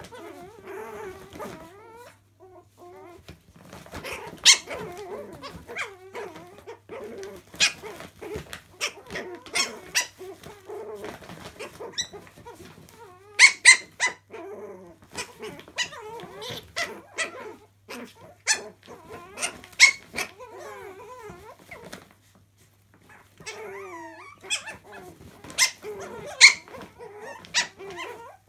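Two chihuahua puppies play-fighting, with small growls and many sharp, high-pitched yips, and a short lull about three quarters of the way through.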